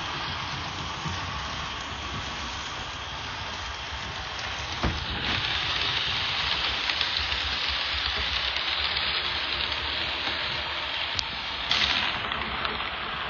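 Model train of bilevel commuter cars rolling along the track, the metal wheels making a steady hissing clatter with occasional clicks, louder from about five seconds in as the cars pass close.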